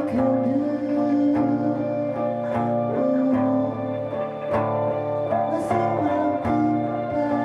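Guitar music: plucked notes and chords played in a steady rhythm, with held notes ringing between them.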